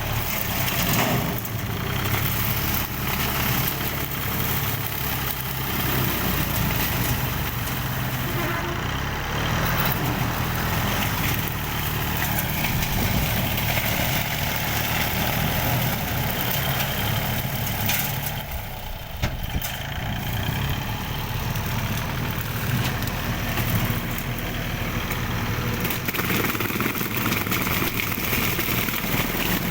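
Engine of a workshop-built grass-cutting machine running steadily as it cuts, with a brief drop in level about two-thirds of the way through.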